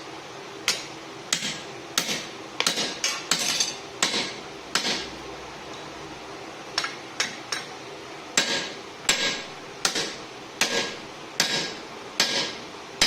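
Hand hammer blows ringing on steel, a forklift-fork hammer head being forged by hand, about one strike every half second to second with a short pause near the middle.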